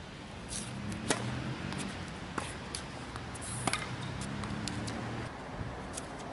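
Tennis ball struck by rackets during a point: a sharp pock from the serve about a second in, then further hits and bounces every second or so. A low steady hum runs underneath.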